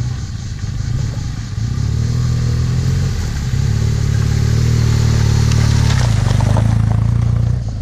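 Adventure motorcycle engine running at low revs as the bike rides through a shallow river ford, growing louder as it approaches. Water splashes from the wheels as it passes close by, and the engine sound drops away near the end.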